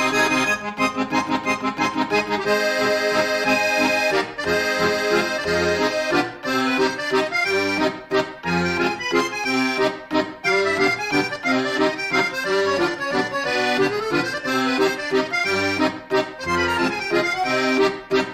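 Background music: an accordion tune in a traditional style over a regular bass beat.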